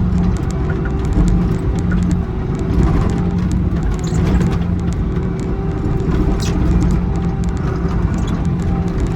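Excavator's diesel engine running steadily under load, with scattered short clicks and scrapes.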